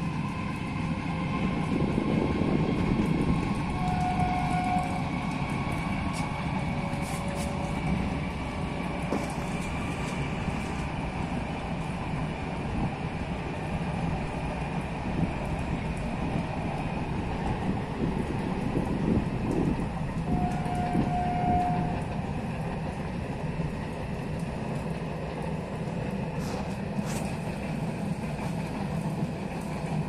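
Passenger train running at speed, heard from inside a carriage with the window open: a steady rumble of wheels on the rails. A short, steady tone sounds twice, a few seconds in and again about two-thirds of the way through.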